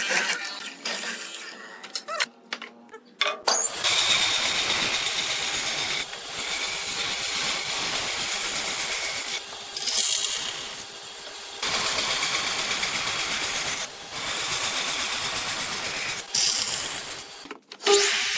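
Scattered knocks and clicks on wood, then a power tool running on wood in long stretches with short dips in level.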